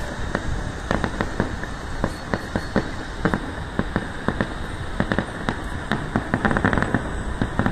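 Aerial fireworks going off: an irregular run of sharp bangs from bursting shells, with a denser crackling flurry of reports about two-thirds of the way through.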